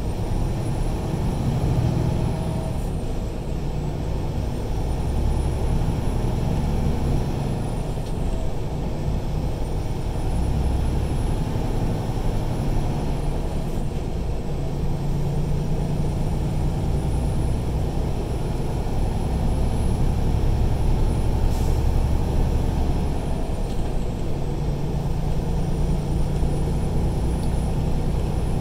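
Steady engine drone and road rumble inside the cab of a truck cruising at highway speed.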